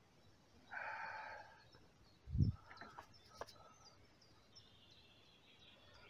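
Quiet outdoor ambience with a short call about a second in, then a low thump from the handheld phone being moved about two and a half seconds in, followed by a few faint clicks.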